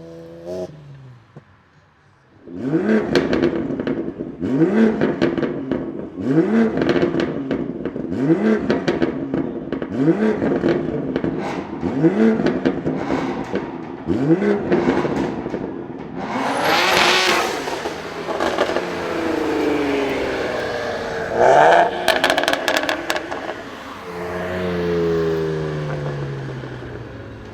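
BMW car engine revved again and again, the pitch climbing about every two seconds, with exhaust crackles. About two-thirds of the way through comes a loud burst of noise, then a quick run of sharp pops, and near the end the engine settles to a steadier, lower note.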